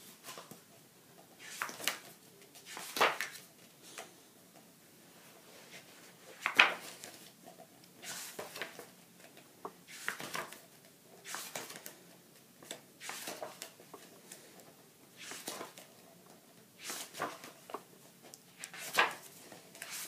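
Thick pages of a photobook being turned one after another: about ten short papery swishes, one every second or two, the loudest about six and a half seconds in.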